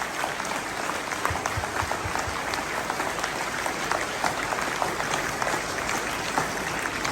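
Audience applauding: many people clapping steadily in a dense patter of claps.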